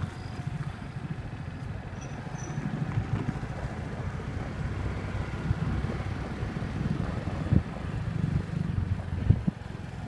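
A motor vehicle's engine running at low speed, a steady pulsing hum, with two sharp knocks late on.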